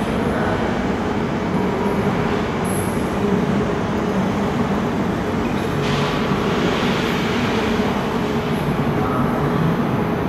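A CP electric multiple unit approaching along the station tracks. Its running noise is steady, with a constant hum, and a higher hiss of the wheels on the rails comes in about six seconds in.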